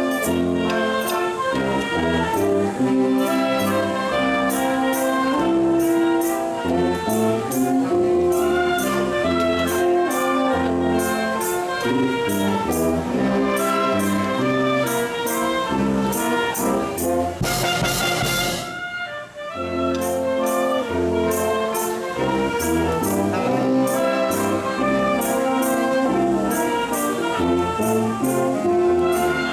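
A wind band of brass and saxophones, with sousaphone bass, plays sustained chords over a steady percussion beat. A second-long wash of noise cuts across the music a little past the middle.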